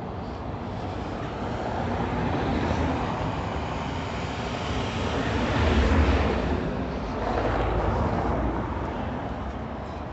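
Street traffic noise, swelling and fading as vehicles pass, loudest about six seconds in.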